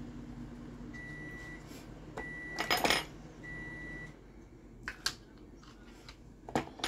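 A microwave oven hums until its cycle ends about a second in, then gives three even end-of-cycle beeps. A loud clatter of kitchenware comes between the first two beeps, and a few sharp knocks follow near the end.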